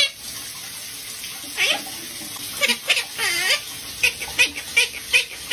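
A pet parrot chattering: a run of short, high chirps and squawks begins about a second and a half in and comes several times a second by the end.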